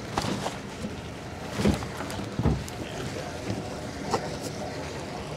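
Boat outboard engines running steadily at low speed, with wind on the microphone. Two dull thumps come about two seconds in.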